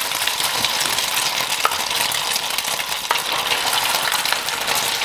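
Beaten egg drizzled into a pot of smoking-hot deep-frying oil, the oil sizzling and crackling steadily as the egg puffs up. A couple of small clicks sound about one and a half and three seconds in.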